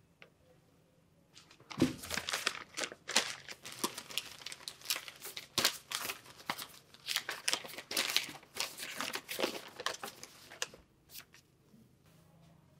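Sheets of paper rustling and crinkling as they are handled, unfolded and shuffled. Irregular crackles start about a second and a half in and stop near the end.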